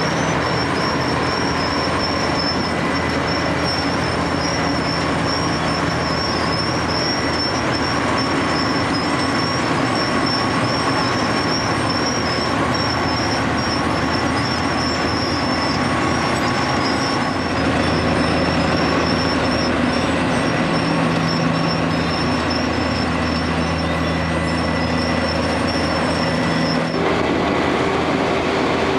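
Wirtgen W250 cold milling machine at work, its cutter drum grinding the old asphalt off the road: a loud, dense, steady grinding noise with a high, steady whine over the machine's engine. About two seconds before the end it changes abruptly to a lower, steadier engine sound.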